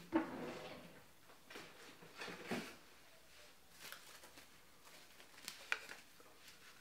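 Kitchen handling sounds as a bowl of marinated chicken is covered: a few brief rustles, the first and loudest right at the start, and a sharp click near the end.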